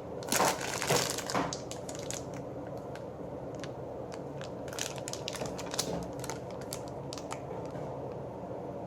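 Handling noise as a water-cooling monoblock and its packaging are moved about by hand: a burst of crinkling and rustling about half a second in that lasts about a second, then scattered light clicks and taps.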